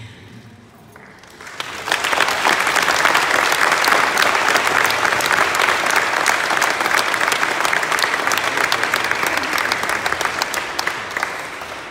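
Audience applauding: a dense patter of many hands clapping that swells in about two seconds in, holds steady, and fades away near the end.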